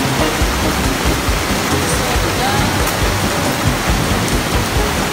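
Heavy rain pouring down steadily, a loud, dense, even hiss.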